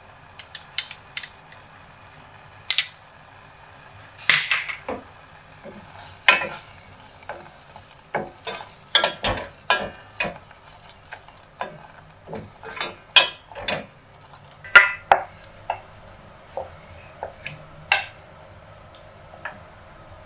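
Wooden spoon stirring chopped strawberries and sugar in a stainless steel saucepan, knocking against the pan's sides in irregular sharp clicks over a faint steady simmer.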